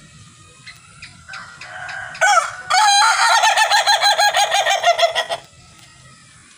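Ayam Ketawa (laughing chicken) rooster crowing. Its crow is a short opening note, then a long, rapid, rattling run of about five pulses a second: the breed's 'laughing' crow. The run lasts about three seconds and stops abruptly.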